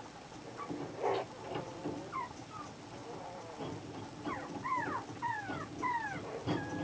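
Chihuahua puppy asleep, giving a series of short, high-pitched whimpers that fall in pitch, most of them bunched together in the second half, over a noisy background.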